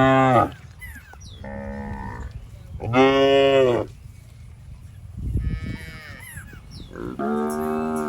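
Cattle mooing: a series of long moos about every two seconds, some loud and low, others softer and higher-pitched.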